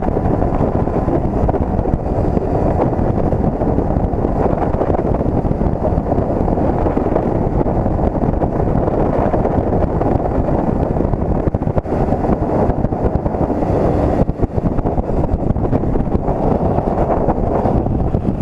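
Steady wind rush on the camera microphone of a motorcycle riding at road speed, mixed with the bike's running and road noise as one dense, low rumble.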